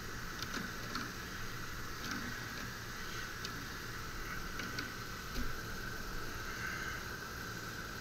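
Light metal clicks and taps of hand tools working the gas pipe fittings on a rooftop unit's gas valve, with one low thump about five and a half seconds in, over a steady background hiss.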